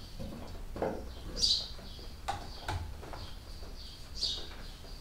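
A bird chirping: short, high, falling calls twice, about a second and a half in and near the end. Between them come a few light knocks and clicks from the paint roller and tray being worked.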